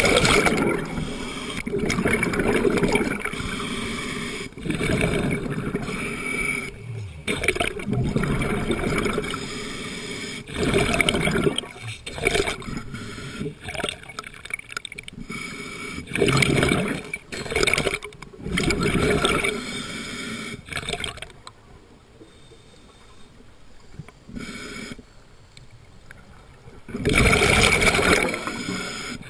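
Underwater bubbling and gurgling from a diver's exhaled breath, coming in bursts of one to three seconds, with a quieter stretch of several seconds near the end before one last loud burst.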